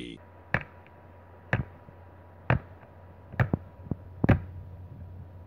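Sharp clicks and taps of a USB flash drive being handled and pushed into a laptop's USB port: about six in all, the first three about a second apart and the rest closer together, over a faint steady hum.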